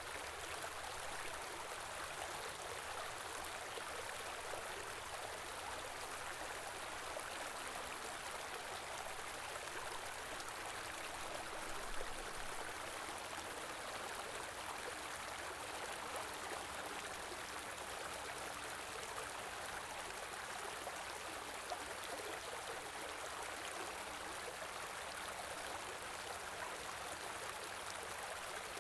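Small stream running steadily over stones in a wintry, snow-covered setting: an even, continuous water rush and babble, with one brief louder splash about midway.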